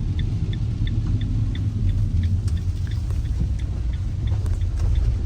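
Ram ProMaster City van driving, a steady low engine and road rumble heard from inside the cab, with a light regular ticking about three times a second.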